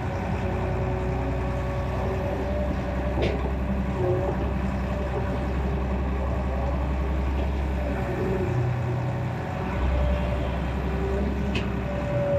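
Excavator's diesel engine running steadily, with two sharp clicks, about three and eleven seconds in.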